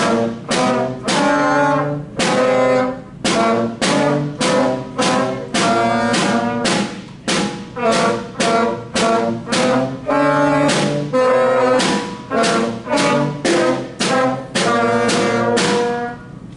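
Beginner school wind band, three weeks into learning, playing a simple tune in unison: short, separated notes about two a second, with brass prominent. The playing stops just before the end.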